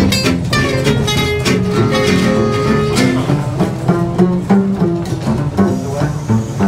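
Acoustic swing jazz from a small band: two acoustic guitars strumming and picking, an upright double bass and a clarinet.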